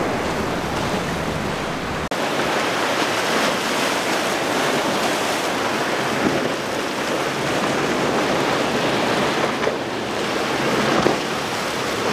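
Choppy ocean surf and churning spray, with wind buffeting the microphone. The sound breaks off for an instant about two seconds in.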